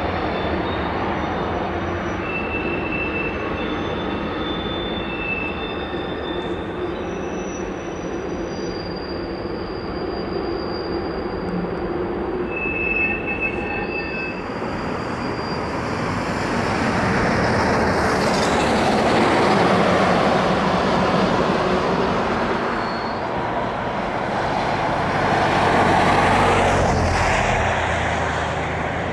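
Canadian Pacific freight train rolling past, its steel wheels giving short, high-pitched squeals over the first half above a steady rolling rumble. From about halfway the rumble grows louder, swelling twice.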